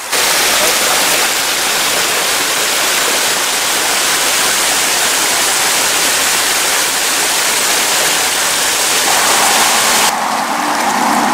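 Rushing water of a rocky mountain stream spilling over small waterfalls: a steady, full hiss that starts abruptly. About ten seconds in it gives way to a duller, quieter outdoor background.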